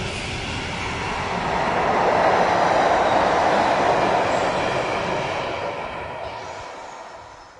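Freight train of sliding-wall wagons rolling past, their wheels running on the rails in a steady rumble. It is loudest in the first half, then fades away as the last wagon passes and the train moves off.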